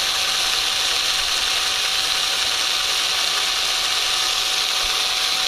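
Cordless drill running steadily under load, its bit boring into the swing set's metal, with an even motor whine held at constant speed.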